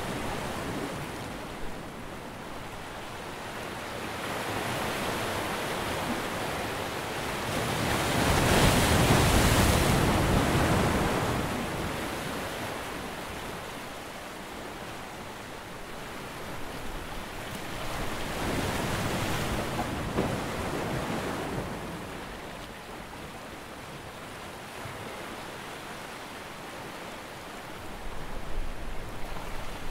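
Sea waves washing in and drawing back, a slow rushing that swells and fades. The biggest swell comes about eight to eleven seconds in, and a smaller one follows about eighteen to twenty-one seconds in.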